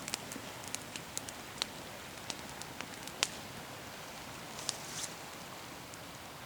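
Small wood campfire crackling: irregular sharp pops over a steady low hiss.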